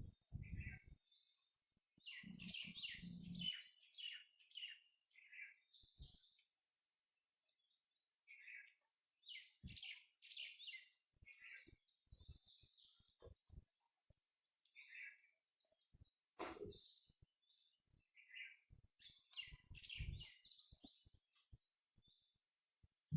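Small birds chirping and twittering in short, faint bursts throughout, several calls overlapping at times, with a few brief low thuds in between.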